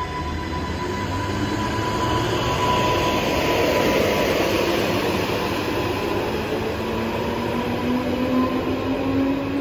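Transport for Wales Class 230 multiple unit pulling away from the platform and accelerating. Its running noise is loudest about four seconds in, and a motor whine climbs steadily in pitch through the second half. A steady high tone fades out partway through.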